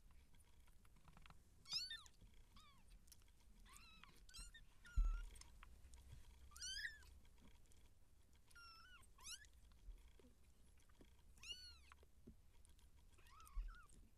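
Three-week-old Siamese kittens mewing: about ten short, high, arching cries spread out with pauses between them. A low thump about five seconds in.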